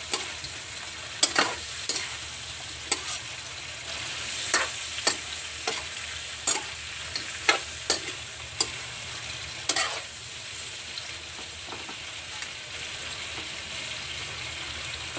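Shrimp sizzling in hot oil in a wok while a metal spoon stirs them, with sharp clinks and scrapes of the spoon against the pan. The clinks stop about ten seconds in, and the steady sizzle carries on.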